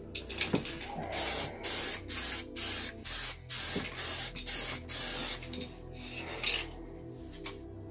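Paint spraying in about nine short, even bursts of hiss, each about a third of a second long, then stopping about five seconds in.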